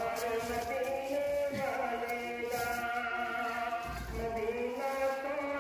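A male voice chanting in long held notes that glide slowly up and down in pitch.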